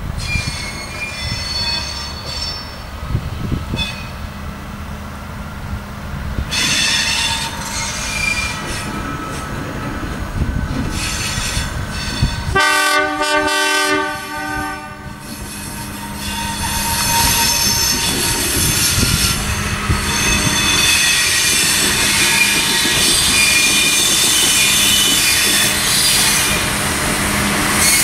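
Bluebird diesel railcar running on curved track, its wheels squealing on the curves, and sounding its horn for about two seconds midway through. Its running grows louder near the end as it draws close and passes.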